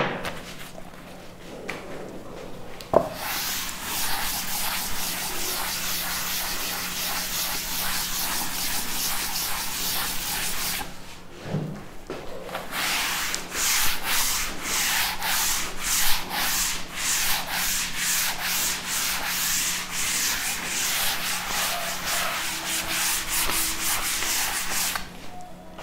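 Chalkboard duster rubbing across a chalkboard to erase it: a steady scrubbing at first, then after a short pause quick, rhythmic back-and-forth wiping strokes.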